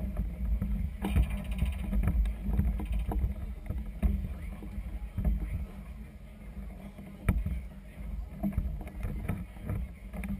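Low, fluctuating rumble of wind on the microphone and river chop washing against the hull of a moored floating clubhouse, with a few sharp knocks, the clearest about four and seven seconds in.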